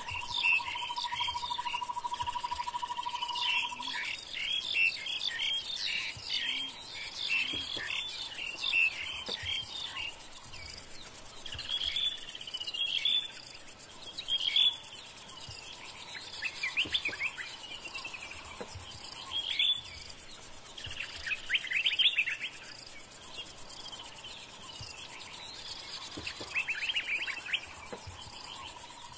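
Bush ambience of insects trilling steadily at a high pitch, with many birds calling in short falling chirps over it and coming in louder clusters now and then. A steady mid-pitched tone runs for the first few seconds.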